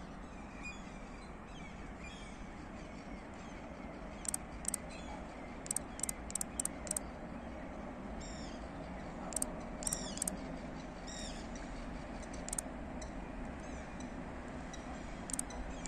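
Small birds calling: scattered sharp high ticks and several short chirps that sweep downward. Beneath them is a faint low rumble from a distant approaching train, growing a little louder in the second half.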